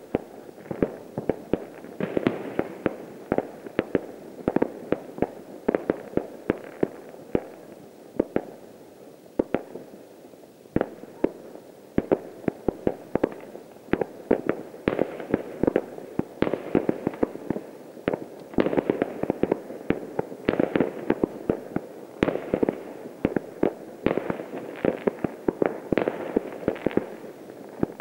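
Distant fireworks going off all across a town: a dense, irregular run of bangs and pops over a constant low din of overlapping blasts. It thins out briefly about a third of the way in and is busiest in the second half.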